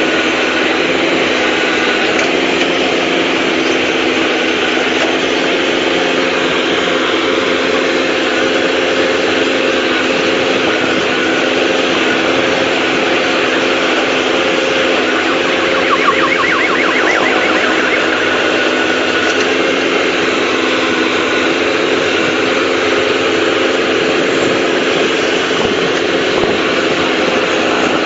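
A vehicle engine running steadily, with a brief higher warbling sound about halfway through.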